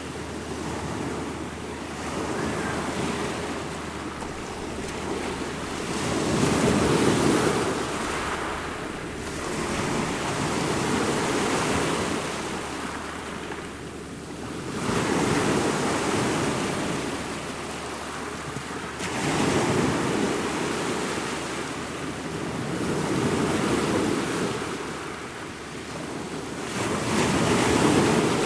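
Ocean waves breaking and washing in, swelling and falling in a slow rhythm every four to eight seconds.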